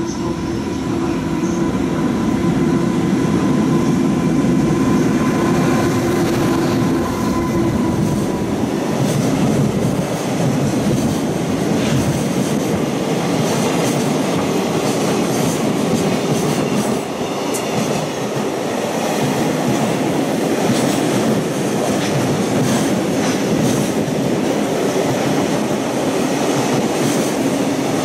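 An EH500 electric locomotive passes close by, giving a steady hum for the first several seconds. Then a long train of container freight wagons rolls past with continuous wheel-on-rail rumble and repeated clicks over the rail joints.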